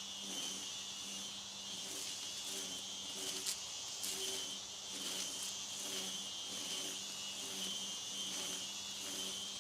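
String trimmer (weed whacker) running steadily as it cuts long grass, a constant motor hum with a steady high whine. A single sharp tick about three and a half seconds in.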